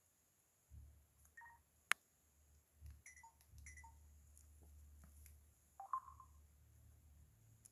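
Faint mobile phone key beeps, a few short tones pressed one at a time, with one sharp click about two seconds in and light handling rumble.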